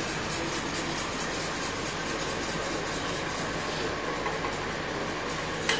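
A whisk stirring a white sauce in a stainless steel saucepan on a gas hob: a steady scraping hiss with a faint regular rhythm. A short click near the end.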